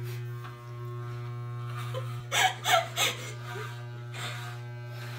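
Corded electric hair clippers running with a steady low hum. A few short, louder rasping bursts come about halfway through as the blades cut hair along the rim of a bowl held on the head.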